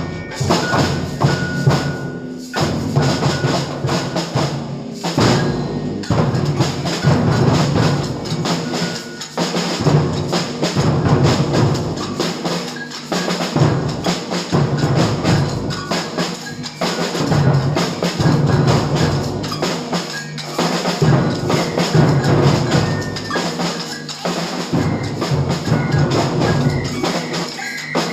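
Samba percussion band (bateria) playing a groove together: deep bass drum beats driving a dense rhythm, with snare drums (caixas) and bells rattling and clanging higher up, the caixas and bells sitting low in the mix.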